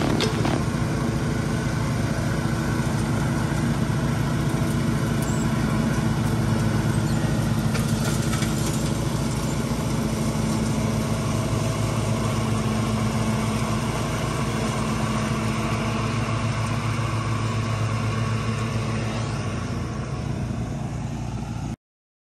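Zero-turn riding mower and Trac Vac leaf vacuum engines running steadily while vacuuming leaves, then the sound cuts off suddenly near the end.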